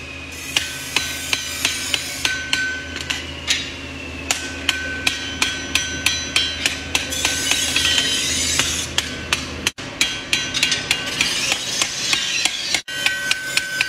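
Hand hammer forging a red-hot steel cleaver blank on an anvil: quick, regular blows, about two to three a second, each leaving the anvil ringing.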